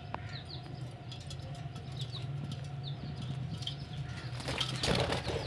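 Budgerigars chirping in short, high notes, with a burst of wing flapping near the end.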